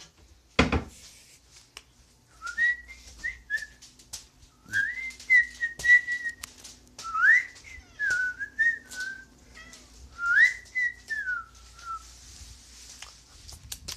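A person whistling a wandering tune through the lips, in short phrases of gliding notes that start about two and a half seconds in and stop near the end, with a few short clicks and scrapes between them.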